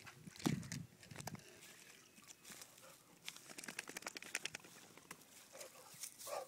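Light clicks and pattering of a wet Vizsla puppy moving about on a concrete lake edge, with a soft thump about half a second in.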